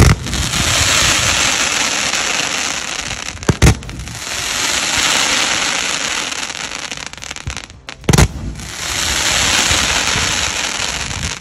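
Sony Vinayaga Fireworks' High Voltage crackling multishot fan cake firing three volleys, at the start, about three and a half seconds in and about eight seconds in. Each is a sharp launch bang followed by a long, dense crackle of several seconds as the stars burst into crackling sparks.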